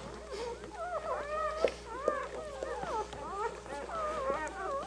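Several newborn German Shorthaired Pointer puppies squeaking and whimpering over one another while they nurse, with high, wavering cries overlapping without a break.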